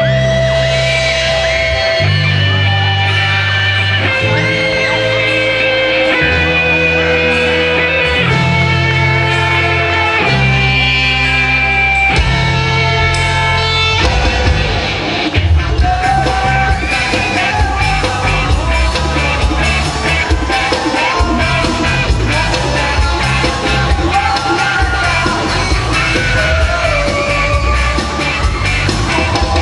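Live rock band playing in a large hall. Held chords over bass change about every two seconds, then about fourteen seconds in the drums come in with a steady beat under a sung melody.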